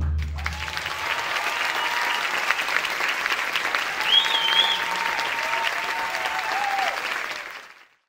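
Theatre audience applauding and cheering as the swing music's last note dies away, with a short whistle about four seconds in. The applause fades out near the end.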